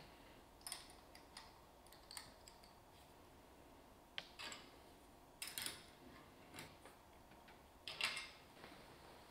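Faint handling sounds: scattered light clicks and taps with a few brief scuffs, the loudest about eight seconds in.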